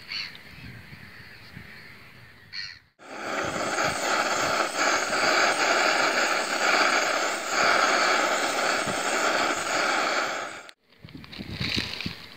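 A large flock of birds calling all at once in a dense, continuous chatter. It starts abruptly about three seconds in and stops just as abruptly near the end, with only faint outdoor ambience and a few single calls before and after.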